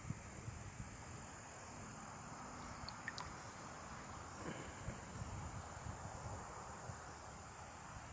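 Faint outdoor ambience: a steady high insect buzz, with soft low bumps underneath.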